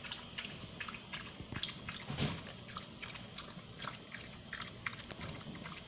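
Small dog lapping water from a bowl: an irregular run of quick wet laps and clicks, several a second.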